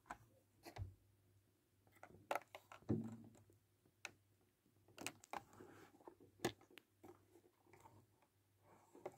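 Hot Wheels blister-card packages, clear plastic bubbles on cardboard backing cards, crinkling and clicking as they are handled. The sound comes as scattered faint clicks and short rustles, a few sharper ones in the middle.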